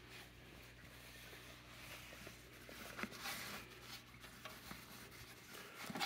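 Faint handling noises from the old vacuum cleaner being worked on by hand: light rubbing and rustling of parts, with a small knock about three seconds in. The machine itself is not running.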